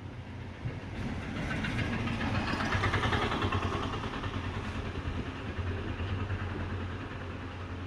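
IFB front-loading washing machine running with its drum turning: a steady low hum under a mechanical whir that swells over the first few seconds and then holds. It is the sound of a machine whose drum spider and drum are damaged.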